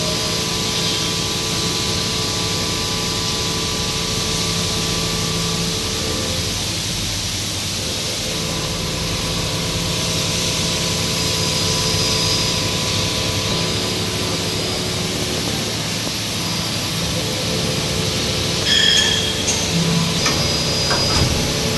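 CNC vertical machining center milling a shredder blade segment with an end mill: a steady machining noise with several steady tones. About 19 seconds in it grows louder and rougher, with some sharp high sounds.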